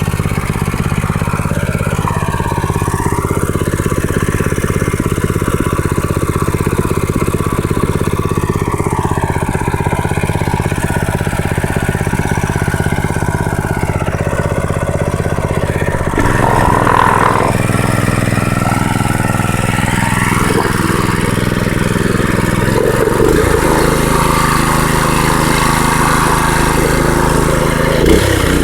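Predator 212cc single-cylinder four-stroke engine running steadily as it warms up just after a cold start on months-old gas. Its note changes about 16 seconds in and again about 23 seconds in.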